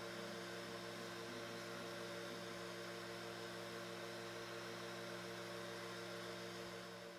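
Tronxy XY3 SE 3D printer running mid-print: a steady faint hum made of several fixed tones, unchanging throughout.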